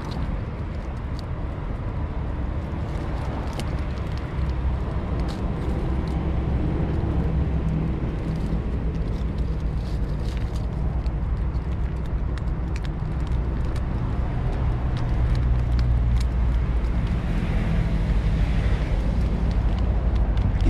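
Steady low rumble of road traffic, with scattered sharp little clicks from a cat eating dry kibble out of a steel dish.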